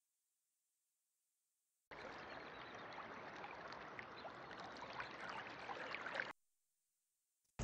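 Shallow stream water rippling and trickling, with small splashes. It starts abruptly about two seconds in and cuts off abruptly about a second before the end.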